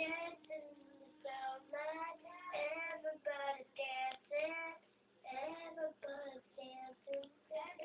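A young girl singing, in short phrases with held notes and brief breaks between them.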